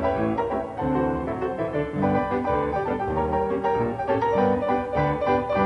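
Instrumental background music with a keyboard lead, notes changing steadily throughout.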